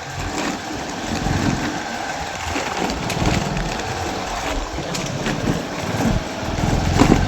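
A vehicle's engine running while under way, with an uneven low rumble and scattered knocks.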